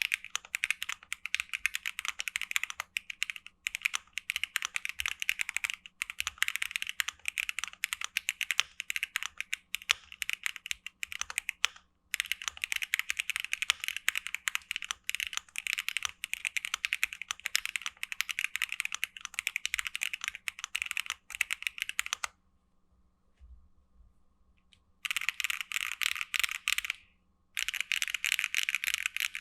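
Fast typing on a gasket-mount mechanical keyboard with Wikuo Harmony linear switches, a polycarbonate plate and ABS keycaps: a dense run of quick keystroke clacks. The typing stops for a few seconds about three-quarters through, then resumes in two short bursts.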